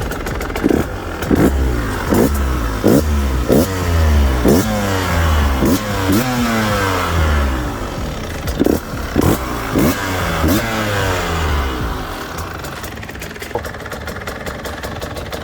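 Husqvarna TE150i's 144 cc single-cylinder two-stroke engine revved in about a dozen short throttle blips, each a quick rise and fall in pitch, then settling back to idle for the last few seconds.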